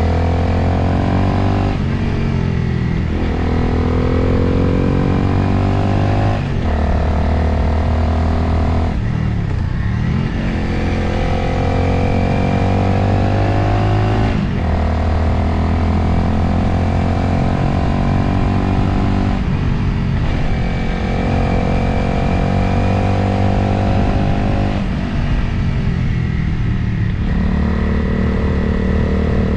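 Motorcycle engine under way, heard from the rider's position, its pitch climbing under throttle and then dropping back about seven times, with steady wind and road noise underneath.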